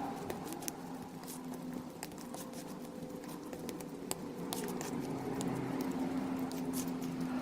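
Slime being pressed and squished, giving many small sticky pops and clicks over a steady low hum.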